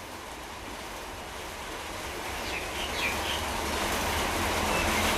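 Steady hiss of rain falling outside, growing gradually louder.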